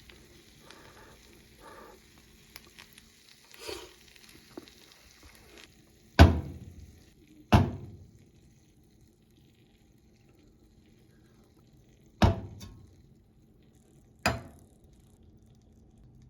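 Hamburg steak sizzling faintly as it fries, then four sharp knocks with a short ring: two close together partway through and two more near the end.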